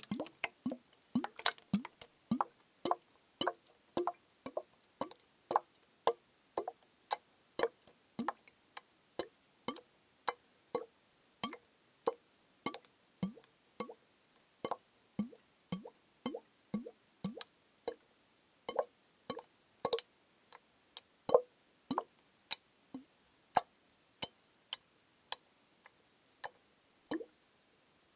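Tapping on a liquid-filled plastic bottle, about two taps a second, each a sharp click with a short plop whose pitch shifts from tap to tap.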